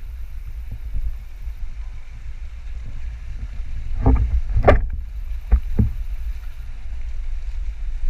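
Low steady rumble of an indoor pool hall's background noise, with a quick cluster of knocks about halfway through and two more about a second later.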